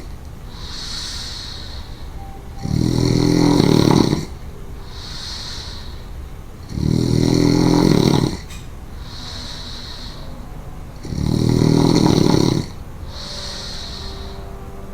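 A woman snoring: three loud, low snores about four seconds apart, each about a second and a half long, with a softer, hissy breath between each.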